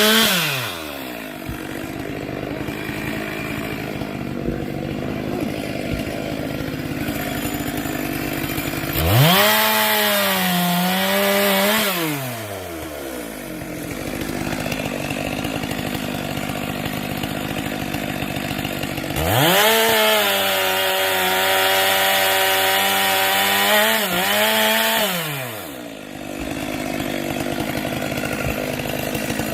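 Two-stroke chainsaw winding down to idle at the start, then throttled up to full speed twice, for about three seconds and then about six seconds, its pitch sagging as it cuts into wood before dropping back to idle each time.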